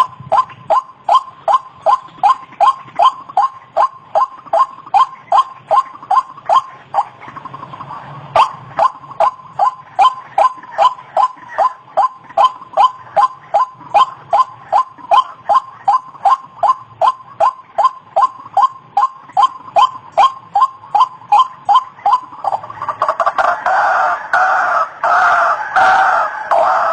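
White-breasted waterhen (ruak-ruak) giving its monotonous repeated call, about two notes a second. About 23 seconds in, it breaks into denser, jumbled calling.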